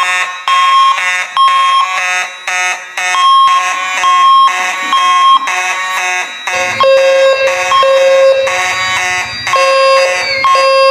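Fire alarm voice-evacuation system sounding its electronic alert tone between spoken messages: a harsh, loud tone in repeated pulses that drops to a lower pitch about six and a half seconds in.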